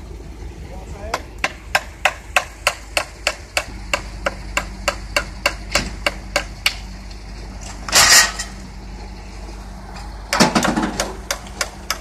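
Hammer driving nails to fix a wooden birdhouse to a tree trunk: a steady run of sharp strikes, about three a second, for several seconds. A brief loud noise about eight seconds in and another around ten seconds, then the hammering starts again near the end.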